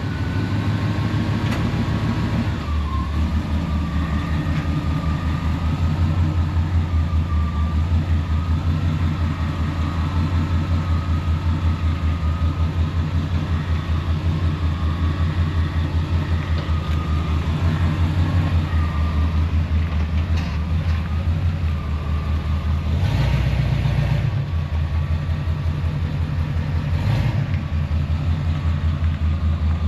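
1978 Chevrolet C10 pickup's engine idling through a newly welded-in aftermarket exhaust, with a steady, evenly pulsing note. The revs rise briefly about 23 seconds in and again for a moment near 27 seconds.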